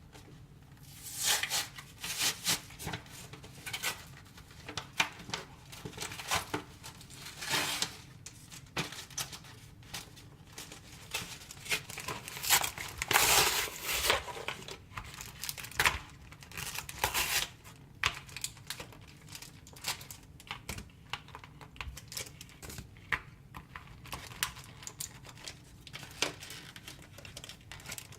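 Retail product packaging being torn and crinkled open by hand: irregular rips and crackles, loudest about halfway through.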